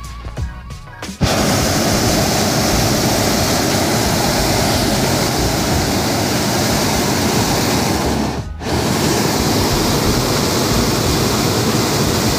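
Hot air balloon's twin propane burner firing overhead, a loud steady rushing blast that starts suddenly about a second in, cuts out briefly about eight seconds in, then fires again.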